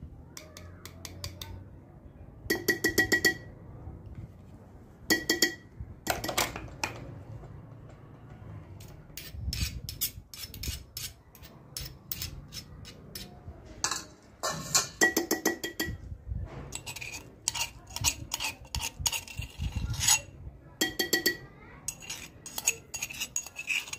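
Metal spoons clinking and scraping against a tin can of tomato paste, an aluminium pot and a small metal bowl, in scattered clinks, several of them ringing out briefly.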